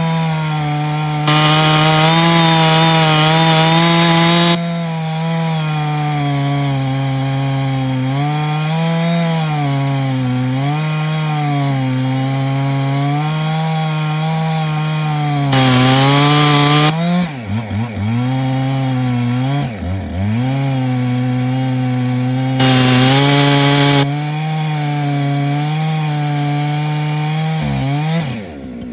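Husqvarna 372XP two-stroke chainsaw held at full throttle, cutting through a large jarrah log. The engine note stays steady under load, with three stretches of louder, harsher cutting hiss. The revs sag briefly twice in the second half and fall away near the end as the saw comes off the throttle.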